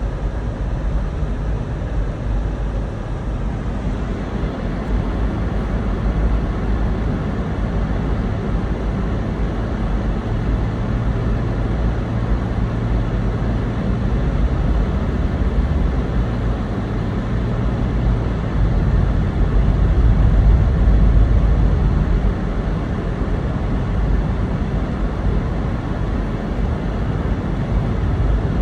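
Steady road noise of a car being driven, heard from inside the cabin: low tyre rumble with a faint engine hum, swelling a little about twenty seconds in.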